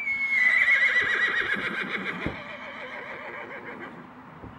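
A horse neighs once: a loud, high call that starts on a steady pitch, breaks into a quavering whinny and trails off over about three seconds.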